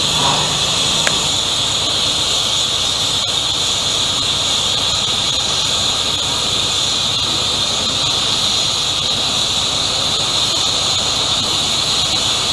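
Steam locomotive 60163 Tornado, a Peppercorn A1 Pacific, releasing steam in a loud, steady high hiss.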